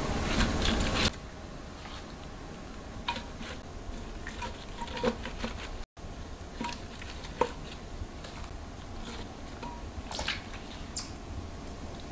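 Salt-wilted whole radishes and their leafy tops being pressed by gloved hands into an earthenware crock: soft squishing and rustling with scattered light knocks and taps, after a louder stretch of noise in the first second.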